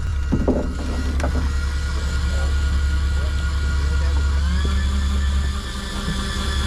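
Steady low drone of the fishing boat's engine, with a steady higher motor whine above it that rises in pitch about four and a half seconds in. A short voice or knock near the start.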